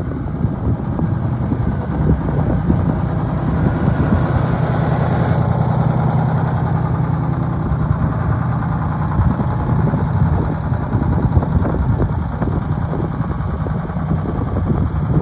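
Engine of a 1981 Ford 9000 tandem-axle grain truck running steadily while its hydraulic scissor hoist raises the dump box, with wind buffeting the microphone near the start and end.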